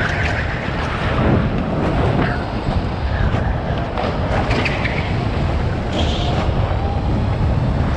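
Kart engine running under load at racing speed, picked up by the onboard camera, its pitch rising and falling through the corners over a steady rush of noise.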